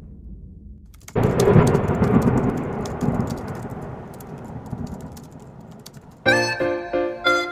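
Edited intro sound effect: a sudden crackling rumble about a second in that slowly fades away. Music with a melody then begins about six seconds in.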